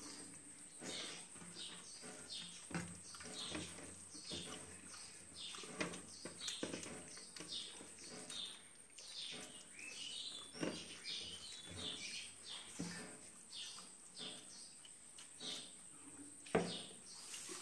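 Eating by hand: fingers working rice and curry on steel plates, with chewing and lip smacks, an irregular patter of small wet clicks and smacks.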